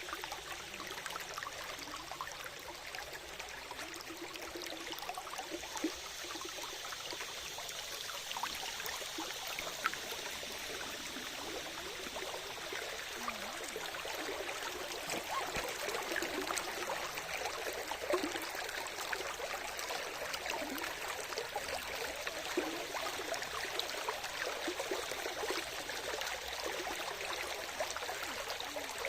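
Water of a small stream or spring trickling and burbling steadily over stones, with many small splashes and drips.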